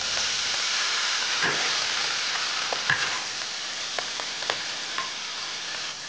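A chili and vegetable stir-fry sizzling as it is tossed in a large wok, a steady hiss with scattered sharp clicks.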